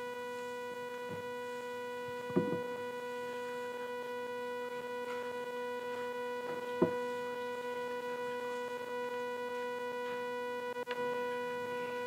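Steady electrical hum, a low buzz made of several even tones, with two short knocks about two and a half and seven seconds in and a faint click near the end.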